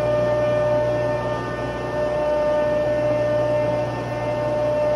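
Steady hum of running machinery, with several constant whining tones over a low drone, its loudness gently swelling and easing every couple of seconds.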